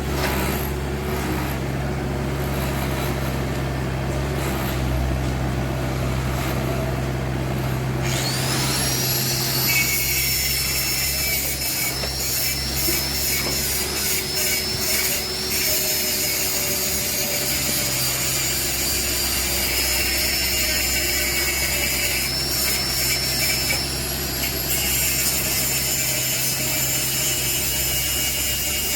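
Excavator's diesel engine running steadily. About eight seconds in, a high whine rises and holds with faint squeaks, then drops away near the end.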